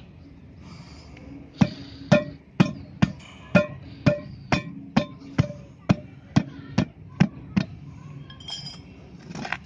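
A hammer striking metal in a steady run of about a dozen blows, roughly two a second, each with a short metallic ring; the blows start about a second and a half in and stop near the end.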